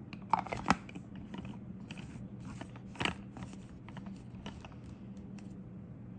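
A couple of sharp knocks near the start, then, about three seconds in, a louder click followed by a run of small plastic clicks and scrapes as the blade base of a personal blender is screwed onto its plastic cup.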